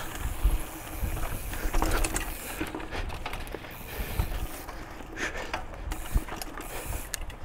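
Mountain bike riding along a dirt trail: drivetrain and frame clicking and rattling over bumps, with irregular knocks and a low rumble from the wheels on the rough ground.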